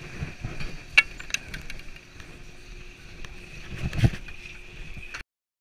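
Chairlift chair rattling and knocking just after loading, over a faint steady mechanical hum, with a sharp click about a second in and a heavier knock about four seconds in. The sound cuts off suddenly a little after five seconds.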